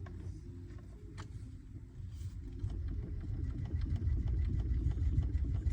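Low rumble of a Hyundai Santa Fe DM running, with faint light clicks and knocks scattered through it; the rumble grows louder about two seconds in.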